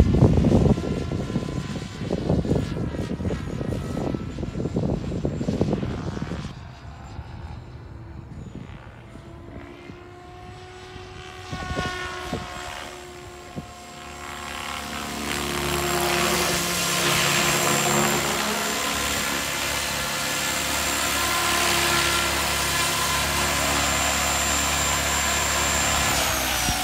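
Electric RC helicopter, a 12S Kraken 580 with an Xnova 4025 motor, flying: steady rotor and motor sound with a high whine, quieter while it is far off, then louder and steady for the last ten seconds or so as it comes in close and sets down. Right at the end the high whine starts to fall as the motor spools down.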